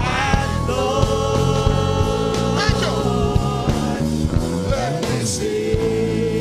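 Music with singing: long held notes over a steady beat.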